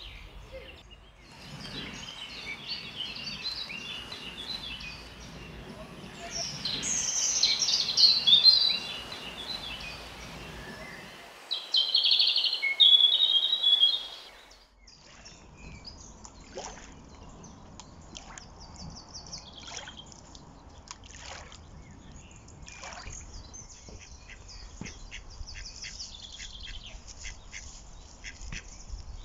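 Birds singing outdoors, with bursts of loud, chirpy song that peak about a third of the way in and again just before halfway. About halfway through, the sound switches abruptly to a different recording full of many short, sharp calls.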